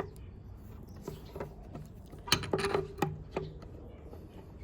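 Small metal clicks and clinks from handling Felco No. 2 pruning shears and a tool while the shears are being taken apart, with a short cluster of louder knocks about halfway through.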